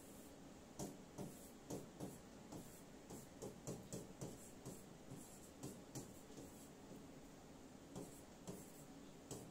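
Stylus writing by hand on the glass of an interactive display: faint, irregular taps and short scratches, about two a second, with a brief pause near the end.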